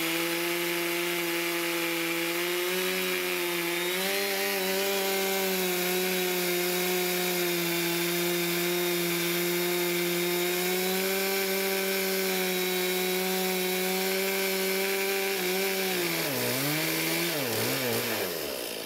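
Stihl two-stroke chainsaw in a chainsaw mill, held at steady high revs as it rips lengthwise through a Douglas fir burl. About sixteen seconds in, the engine speed drops and wavers as the throttle comes off at the end of the cut.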